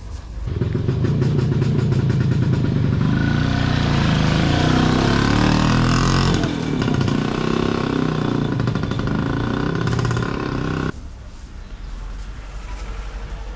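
A loud motor engine running, its pitch shifting, then stopping suddenly about eleven seconds in.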